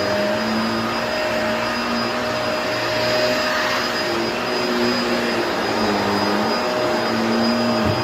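Vacuum cleaner running steadily, a continuous whooshing noise with a motor hum whose pitch wavers slightly up and down.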